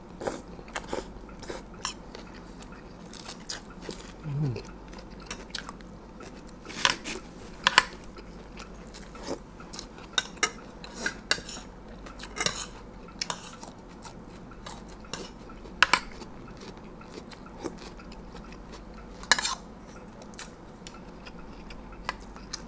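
Metal spoons and forks clinking against plates while eating, in scattered sharp clicks with quiet chewing between; the loudest clinks come about eight, sixteen and nineteen seconds in.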